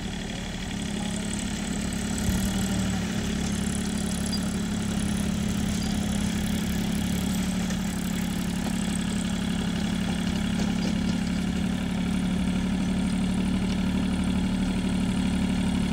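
Compact tractor's diesel engine running steadily under load while driving a rotary tiller through the soil, growing slightly louder toward the end.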